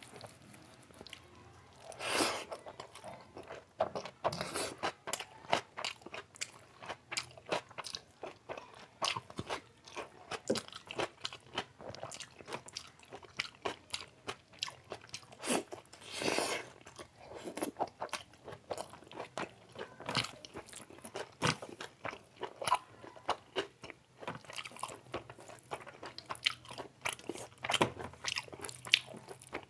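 Close-miked chewing and biting of chicken biryani and chicken curry: a steady run of small wet mouth clicks and smacks, with louder bites about 2 seconds in and again about 16 seconds in.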